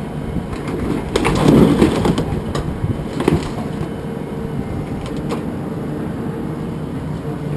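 Metal clanking and knocking as scrap appliances are handled, the loudest clatter about a second in, then single knocks, over a steady low mechanical hum.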